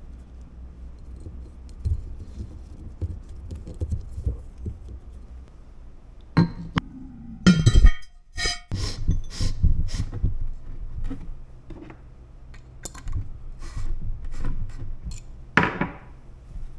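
Irregular clinks and knocks of small hard objects over a faint steady low hum. The loudest clatter comes about halfway through, followed by a brief gap.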